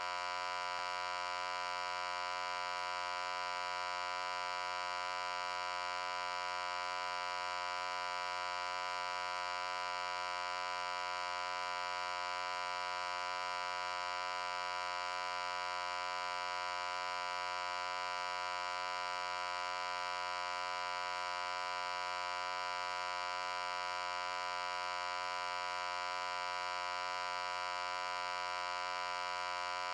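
A loud, steady hum made of many overtones, unchanging in pitch and level throughout.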